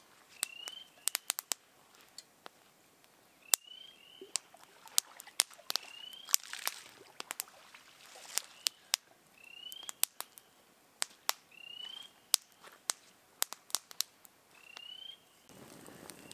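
Wood campfire crackling, with sharp irregular pops. A short rising chirp repeats every second or two.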